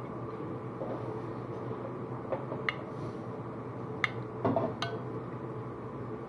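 A metal spoon clinking lightly against a ceramic soup bowl, several separate taps scattered through the second half, over a steady background hum.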